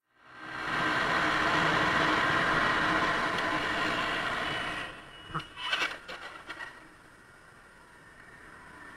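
Road and engine noise of a moving car picked up by a dashcam, steady for about five seconds, then a few sharp knocks in quick succession. After the knocks the level drops to a faint hum.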